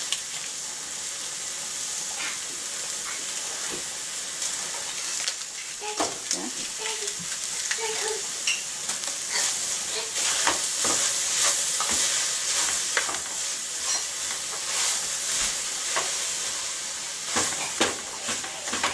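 Seasoned ground meat sizzling in a pot while a spoon stirs it, with frequent short scrapes and knocks of the spoon against the pot.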